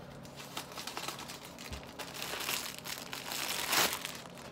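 Plastic mailer package crinkling and rustling as it is cut open and handled, building up and loudest near the end.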